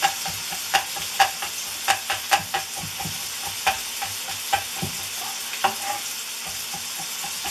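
Kitchen knife mincing garlic on a wooden cutting board: irregular sharp knocks, thickest in the first few seconds and sparser after that, over a steady sizzle of bell pepper strips frying in a pan.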